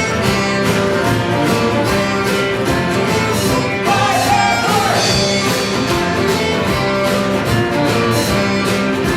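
Live band music with a steady beat and held notes.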